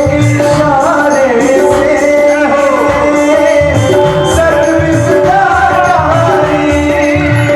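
Devotional bhajan music: a sung melody over sustained held notes from an accompanying instrument, with hand-drum strokes and jingling percussion keeping the beat.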